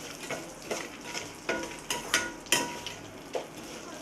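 A spatula stirring and scraping ingredients around an iron pan, with a dozen or so uneven scrapes, over a light sizzle of the mixture sautéing in oil.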